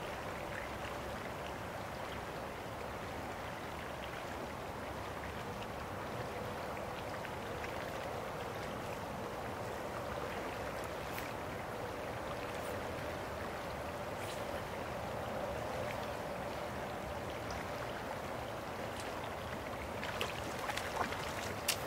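Creek water flowing steadily over a shallow stream bed, a constant even rush, with a few short sharp clicks near the end.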